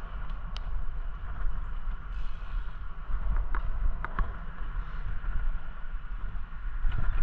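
Wind rushing over a moving bicycle-mounted camera's microphone, with a steady low rumble of tyres on asphalt and a few short sharp ticks, about half a second in and again around four seconds in.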